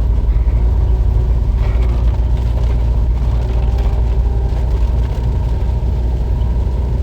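Heavy rain together with a steady, loud low rumble from a road vehicle.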